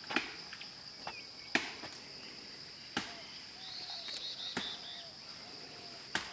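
Insects droning steadily at a high pitch, with sharp clicks about every second and a half.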